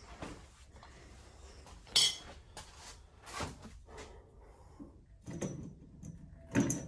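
Metal parts clanking and knocking in a handful of separate sharp hits, the loudest about two seconds in, as a tractor's steering shaft is hooked up and checked for clearance against the new radiator.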